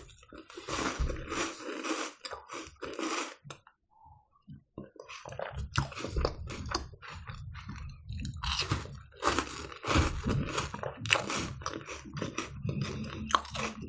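Close-miked crunching and chewing of a chocolate-coated wafer: irregular crisp crunches, with a short pause about four seconds in.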